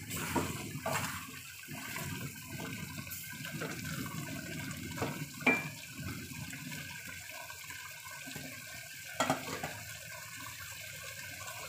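Pork humba's dark sauce bubbling in a stainless steel pot on the stove, a steady bubbling hiss. A few short sharp clicks break in, the loudest about halfway through.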